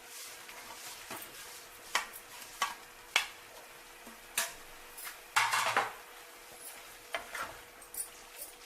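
A spoon or spatula clinking and scraping in a cooking pan as fried okra is stirred into the masala, in a handful of irregular sharp knocks and one longer scrape about two-thirds of the way through, over a low sizzle.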